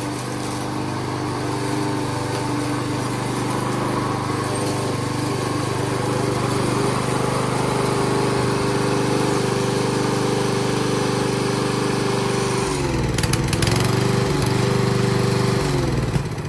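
Yardworks self-propelled gas lawnmower engine running steadily while mowing. In the last few seconds its speed dips and picks up again several times, and the sound begins to fall away right at the end.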